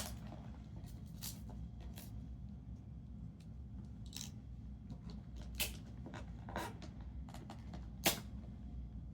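Gift packaging and items being handled during an unboxing: scattered light clicks and rustles, with sharper knocks about five and a half and eight seconds in, over a low steady hum.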